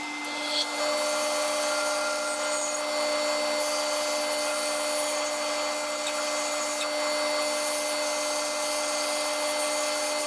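Bandsaw starting up and running steadily with a constant hum and whine while a thin piece of poplar is cut on it.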